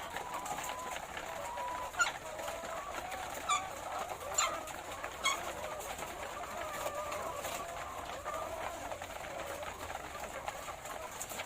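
A flock of laying hens calling together, a continuous low wavering chorus, with a few short sharp sounds between about two and five seconds in.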